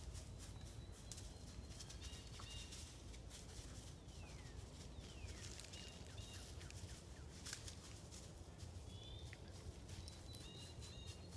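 Quiet woodland ambience: a steady low rumble of wind on the microphone, with a few faint, distant high bird chirps and scattered faint clicks.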